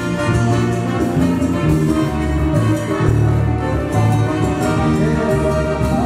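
Live band playing, with a brass section of trumpets and trombone carrying held notes over a moving bass line, amplified through PA loudspeakers.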